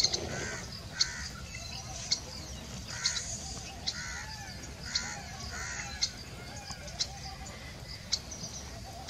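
Forest birds calling in short, arching calls, with a sharp high note repeating about once a second.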